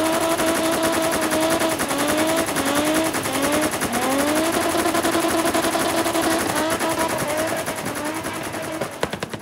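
A car engine revving hard and held high, with a rapid crackle of exhaust pops throughout. The revs dip and climb back several times between about two and four seconds in, hold steady, then drop and fade near the end.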